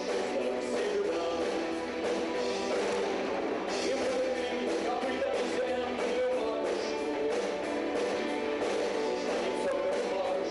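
Rock band playing a song with electric guitars, a dense and steady sound.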